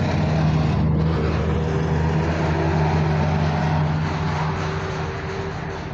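Race car engines passing at low, steady revs as the cars drive back down the hill in a return convoy after their runs, the sound slowly fading near the end.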